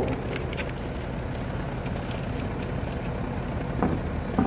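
1998 Lincoln Mark VIII LSC's 4.6-litre DOHC V8 idling steadily through Magnaflow mufflers, with the resonator removed. Two short knocks come near the end.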